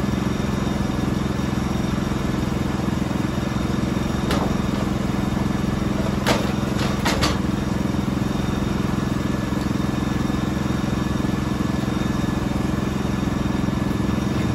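Norwood HD36 portable sawmill's engine running steadily, with a few sharp knocks about four seconds in and again around six to seven seconds in, as the log is loaded onto the mill's bed.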